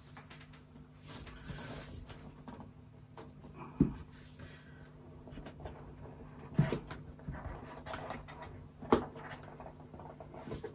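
Cardboard Mac mini box handled on a desk as its tight lid is worked off, with faint rubbing and three brief knocks spread through.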